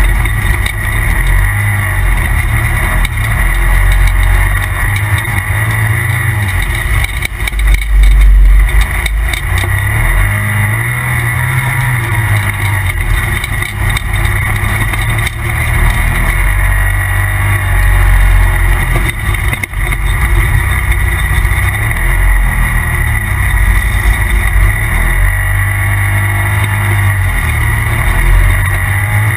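Polaris RZR Turbo side-by-side, turbocharged two-cylinder engine, running under way with engine speed rising and falling. A heavy low rumble swells and fades, loudest about eight seconds in, over a steady high whine.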